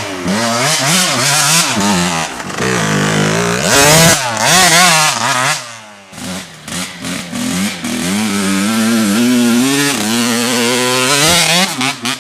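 Dirt bike engine revving hard on a trail, its pitch rising and falling again and again as the throttle opens and closes through the gears. It goes quieter for a moment about six seconds in, then builds again.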